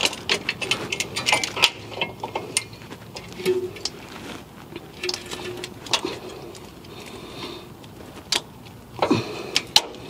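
Irregular metallic clicks and clinks of hand tools on a rear suspension bolt of a 2002 GMC Envoy, as a wrench is worked stroke by stroke to loosen it. The clicks come thick in the first two seconds, thin out through the middle, and pick up again near the end.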